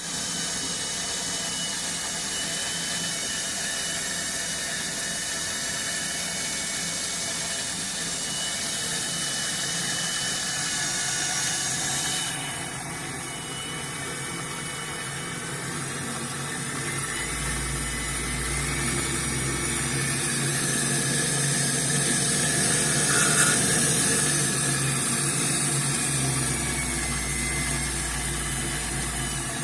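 Homemade combination lathe and milling machine running steadily, a motor drive with a whine and hiss. The sound changes suddenly about 12 seconds in, and a low hum comes in from about 17 seconds.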